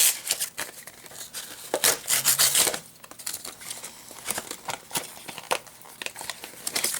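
Product packaging being torn and crinkled open by hand. The loudest tearing and rustling comes at the very start and again about two seconds in, followed by lighter scattered clicks and rustles.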